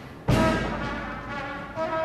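Traditional Taziyeh music: a loud percussion strike about a quarter second in rings on under held brass notes. A brass note swells near the end.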